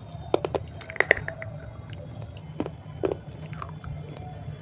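Close-miked chewing of a crunchy dried clay roll: a run of sharp crunches and clicks, clustered about a second in and again near three seconds, over a steady low hum.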